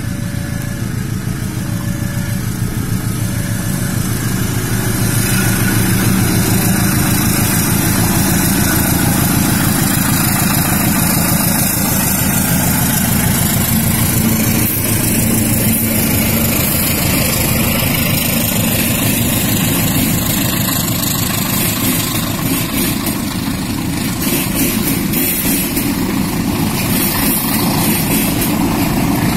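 Diesel-electric locomotive hauling a passenger train past: the engine's heavy rumble is loudest as it goes by, then the coaches roll past with their wheels clattering over the rail joints. A repeating two-note electronic beep sounds for the first few seconds.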